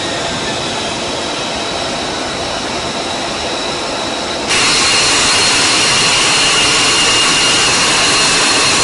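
Jet aircraft engine running: a loud steady rush with a high turbine whine over it. It jumps abruptly louder about four and a half seconds in.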